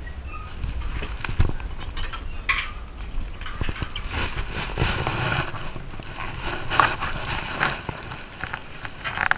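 Wind buffeting the GoPro's microphone, with scattered metallic clicks, knocks and rattles from the zip line trolley and harness rigging while the rider hangs at the platform.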